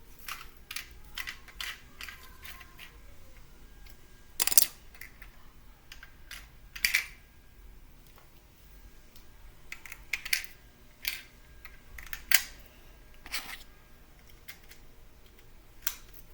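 Lego plastic pieces clicking and clacking as they are handled, a string of irregular sharp clicks with a few louder knocks.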